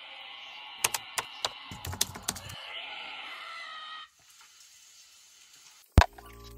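Computer keyboard typing: a handful of quick keystroke clicks over about two seconds, with a steady hiss behind. The sound drops away about four seconds in, and one loud sharp click comes near the end.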